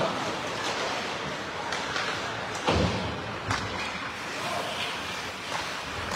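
Ice hockey game sounds: steady rink noise with a loud thud a little under three seconds in and a few lighter knocks, over spectators' chatter.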